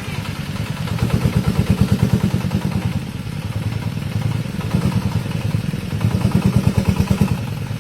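Diesel engine of a homemade farm vehicle running with a fast, even chug of firing knocks. It grows louder twice, about a second in and again near the end.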